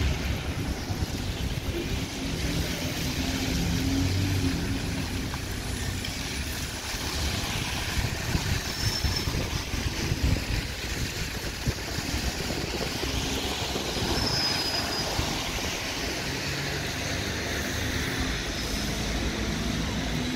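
Double-decker bus engines running and pulling away in busy traffic, with tyres hissing on the wet road.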